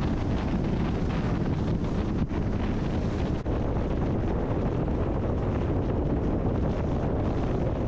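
Steady road and wind noise from a moving car, with wind rumbling on the microphone.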